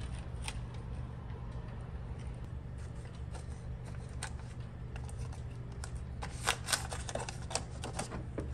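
Blue painter's tape being handled and pressed down by hand: scattered light crinkles and ticks, with a quick run of sharper crackles a little past halfway. A steady low hum runs underneath.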